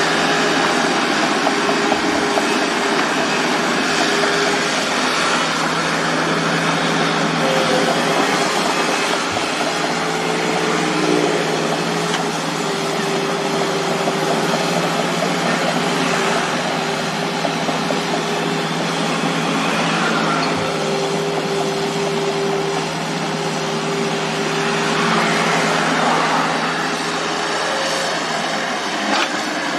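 Hydraulic excavator working: its diesel engine runs steadily under load, with a hydraulic whine that shifts in pitch as the boom and bucket move.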